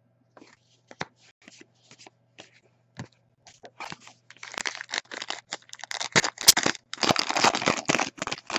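A few light clicks of trading cards being handled, then a trading-card pack's wrapper torn open and crinkled in the hands, a dense crackling that grows louder through the second half.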